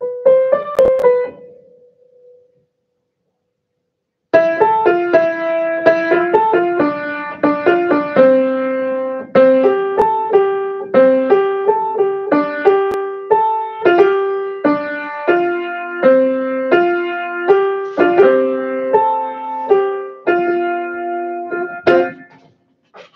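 Piano being played: a few notes, a pause of about two seconds, then a steady run of chords with a melody over them, stopping just before the end.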